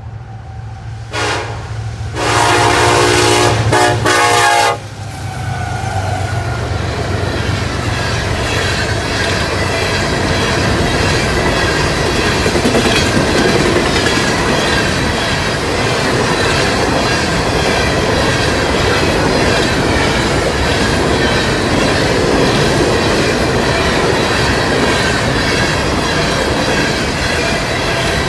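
Diesel freight locomotive air horn: a short blast, then a long loud blast about two seconds in. Then BNSF SD70ACe and ES44AC locomotives run past, followed by a long string of coal cars rolling by with steady wheel clatter.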